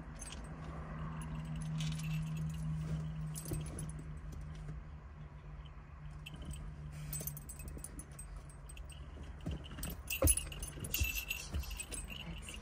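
Dog's metal collar tags jingling in short, scattered bursts as the dog moves about, thickest and loudest in the last few seconds, over a steady low hum.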